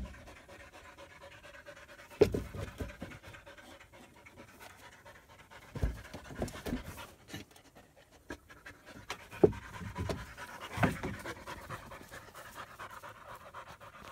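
German Shepherd puppies panting hard after rough play, with several dull thumps a few seconds apart.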